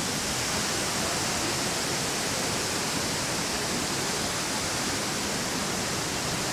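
Steady rushing noise of a large jungle waterfall, constant throughout.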